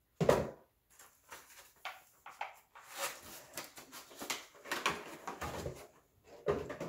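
Knocks, scrapes and rustles of a cardboard Pokémon card box being handled and opened, with a sharp knock about a quarter second in and a second knock near the end.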